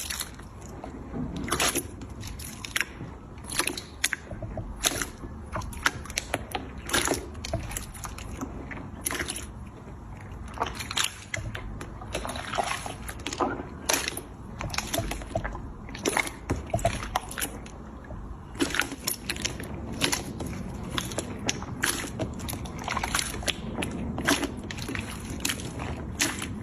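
Slime being handled and squished, giving irregular wet squelches with many small clicks and pops.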